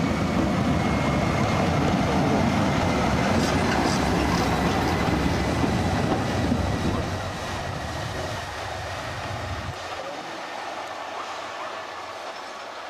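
Vintage electric locomotive rolling past close by on station track, a loud rumble of wheels and running gear with a thin high tone over it in the first few seconds. The rumble fades after about seven seconds, leaving quieter, thinner noise.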